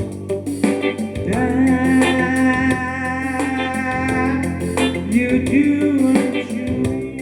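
A voice singing a slow hymn with guitar accompaniment over a steady low bass, holding long notes that slide up into pitch.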